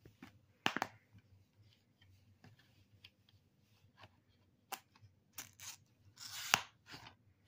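A plastic Blu-ray case and its cardboard slipcover being handled. There is a sharp double click about a second in, then a few scattered clicks, and near the end a short scraping rustle that ends in the loudest click.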